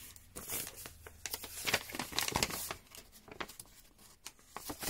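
Small plastic bags of diamond-painting drills crinkling and a paper sheet rustling as they are handled, in short irregular rustles.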